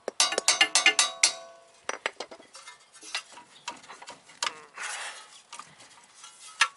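A hammer strikes a steel chisel wedged in the steering knuckle's strut clamp: a quick run of sharp, ringing metal blows in the first second or so, spreading the clamp to break the strut loose. This is followed by lighter metal clinks, knocks and scuffs as the knuckle and brake disc are worked by hand, with one sharp clank near the end.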